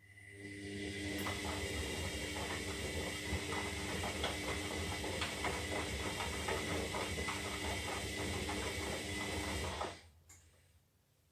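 Zanussi Lindo 300 washing machine's motor turning the drum during the wash phase, a steady mechanical whine with rattling and clicking from the tumbling load, for about ten seconds before it stops.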